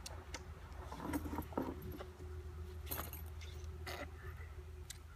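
Scattered clicks and light rattles of small gear and packaging being handled, over a steady low hum.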